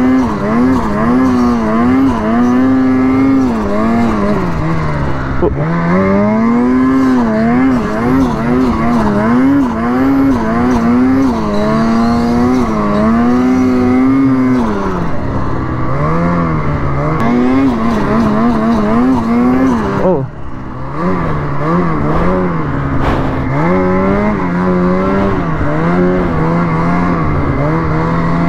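Ski-Doo Freeride 146 Turbo snowmobile's two-stroke engine running under way, its pitch rising and falling constantly with quick throttle changes and briefly dropping off about twenty seconds in. The rider says the turbo is not running well at all.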